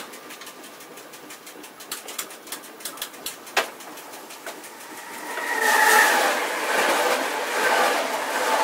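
Sharp clicks and rattles inside a moving train's driver's cab, then about five seconds in an oncoming electric train, an E464 locomotive hauling double-deck coaches, passes close on the adjacent track, with a loud rush of noise and a whine from the locomotive that stays loud as the coaches go by.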